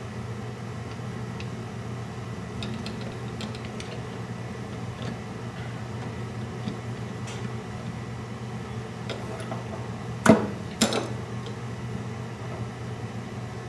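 Light metallic clicks of small brass fittings being handled and threaded into an aluminium block, with two sharper knocks about ten seconds in, over a steady low hum.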